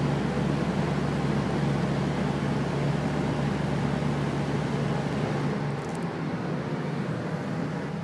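Fan running steadily: an even whooshing hiss with a low hum underneath. The lowest part of the hum drops away about six seconds in.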